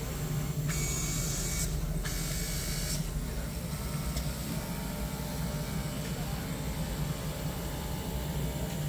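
Automatic fabric cutting machine running with its vacuum table holding down the film-covered fabric stack: a steady low hum, with a high hiss from about one second in until about three seconds in.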